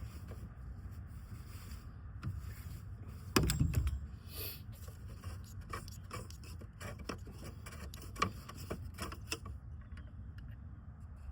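Clicks, scrapes and a thump from the oil filter and its housing cap being handled during an oil change. There is one loud knock about three and a half seconds in, then a run of small clicks and scrapes, over a low rumble.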